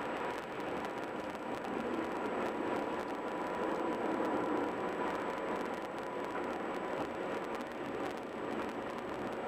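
Steady road noise from a car driving on the interstate: a constant rush of tyre and wind noise with a faint steady hum, no sudden events.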